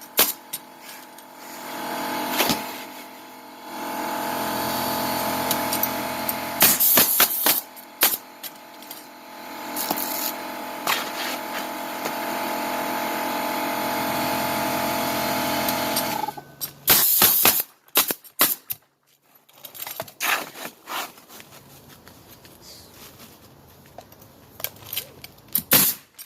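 Roofing nail gun firing into shingles as sharp, scattered shots and knocks, over a steady machine hum that cuts off abruptly about sixteen seconds in.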